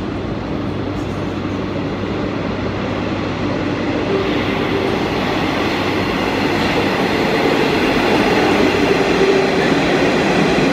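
Metro train arriving at an underground station platform. The rumble of its wheels and motors grows steadily louder as it comes out of the tunnel and runs in alongside the platform, with a faint whine held through the middle.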